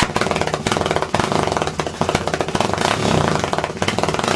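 2006 Honda TRX250EX ATV's single-cylinder four-stroke engine running loudly just after starting, its exhaust note a rapid, rough stream of firing pulses through a freshly tuned pipe.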